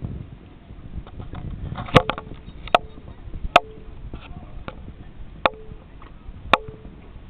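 Sharp hollow knocks on a boat, about five, irregularly spaced, several with a short ring after them, over a steady low rumble.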